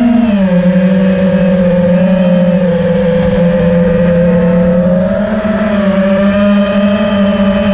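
Electric motors and propellers of a radio-controlled aircraft, heard from on board: a steady buzzing whine whose pitch dips just after the start, rises a little about five seconds in and falls again near the end as the throttle changes.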